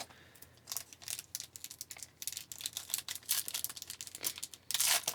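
Foil trading-card pack wrapper crinkling as it is handled and torn open: a run of irregular small crackles, with a longer, louder crinkle near the end.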